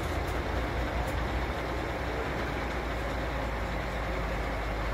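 Diesel engine of an articulated lorry running at low revs as the truck creeps forward slowly: a steady low rumble.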